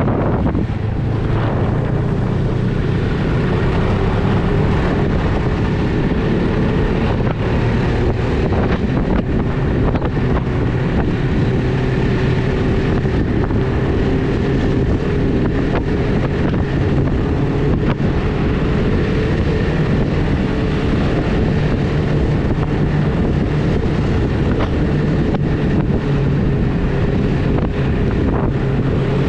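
Snowmobile engine running at a steady cruising speed while the sled travels along a groomed trail, with wind buffeting the microphone.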